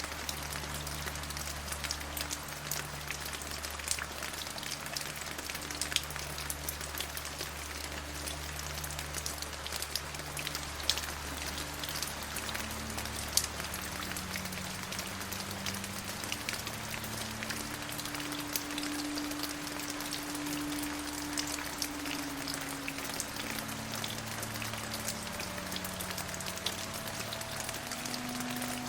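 Steady rain falling, with many individual drops ticking sharply, over low held tones that shift pitch every second or two.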